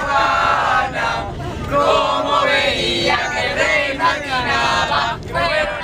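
A group of young people singing and chanting together in loud voices aboard a coach bus, with the bus's engine and road rumble underneath.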